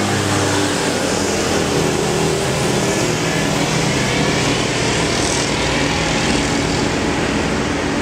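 Steady, loud road-traffic noise, with low engine tones that drift in pitch as vehicles pass.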